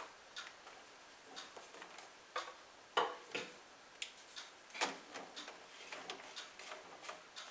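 Scattered light clicks and knocks of plastic slip-joint drain pipe being handled as a slip nut is loosened and the white plastic extension pipe and tee are worked free by hand, the loudest knocks about three and five seconds in.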